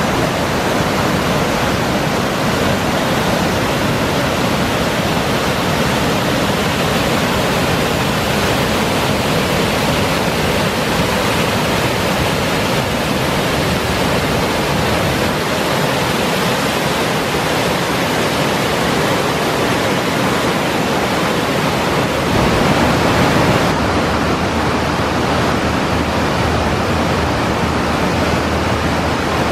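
Alsea Falls, a cascading waterfall pouring over rock ledges, giving a loud, steady rush of whitewater. The sound shifts slightly in tone about three-quarters of the way through.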